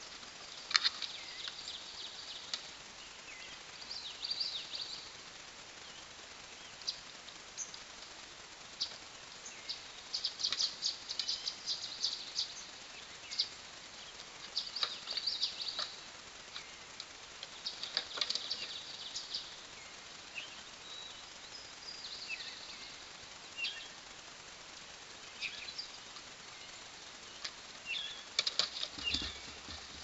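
Songbirds singing in short, repeated chirping phrases over a steady hiss, with a few sharp clicks and a low thump near the end.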